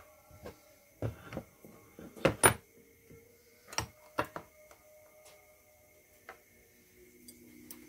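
A series of irregular knocks and clinks from objects being handled and set down, the loudest pair a little over two seconds in, several leaving a short ringing tone. A faint steady high whine sits underneath.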